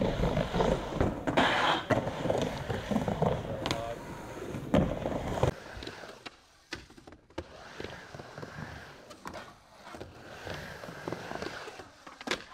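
Skateboard wheels rolling on a wooden vert ramp, with sharp clacks of the board and trucks hitting the ramp and coping. The rolling is loudest in the first half and drops away about halfway through, with a few more clacks later.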